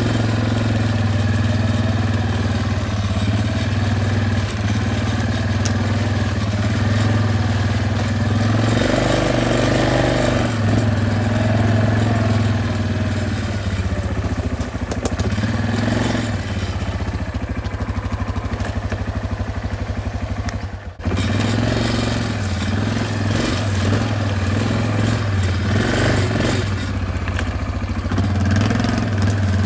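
Quad bike (ATV) engine running at a steady low drone under way, the revs picking up a few times, with a brief sudden break in the sound about 21 seconds in.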